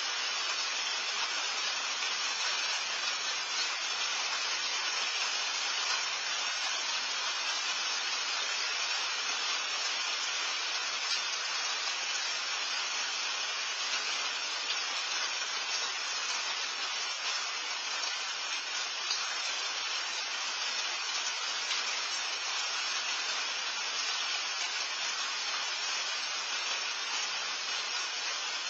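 Steady rain falling, heard as an even hiss with faint scattered ticks of drops.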